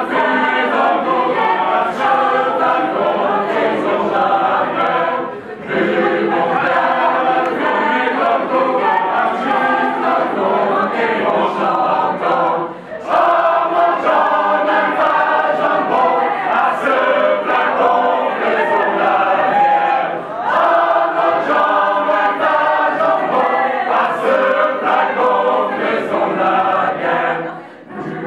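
A large group of men and women singing together unaccompanied, in long phrases of about seven seconds with short breaks between them.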